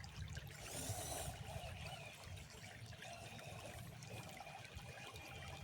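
Water trickling faintly, with a brief high whine about a second in.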